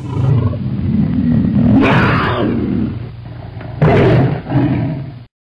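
Big-cat roar sound effect, a low growling roar that swells twice, about two seconds apart, then cuts off suddenly near the end.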